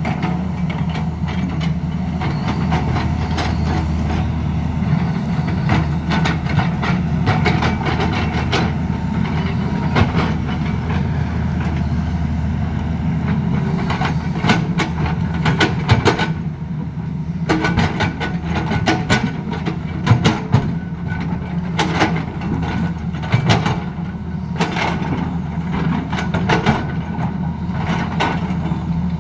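Tata Hitachi tracked excavator's diesel engine running steadily under work, with a stream of metal clanks, knocks and stone rattles as its steel bucket and tracks work rocky soil, the knocks coming thicker through the second half.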